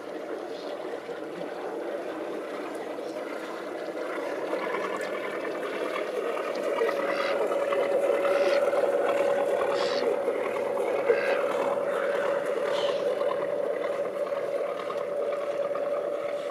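Motor boat engine running with a steady hum, growing louder from about six seconds in as the boat approaches, with short high gull calls over it in the middle.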